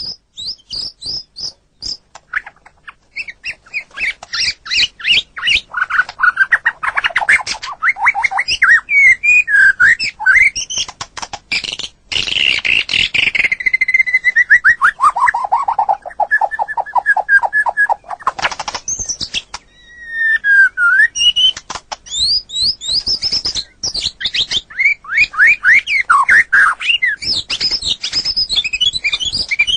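White-rumped shama (murai batu) singing a fast, varied song: rattling trills and quick runs of short repeated notes, with a series of notes falling in pitch around the middle.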